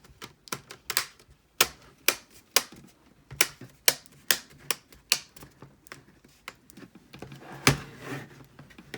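Plastic clips of an HP Stream 14 laptop's screen assembly snapping back into place as it is pressed on: a run of sharp, irregular clicks, the loudest near the end.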